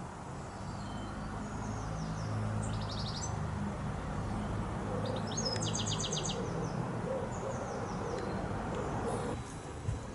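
Gearhead electric motor and bevel-gear drive of a 16mm-scale garden railway railcar humming steadily as it runs on the track, building up and then dropping away about nine seconds in. Birds chirp in short trills twice.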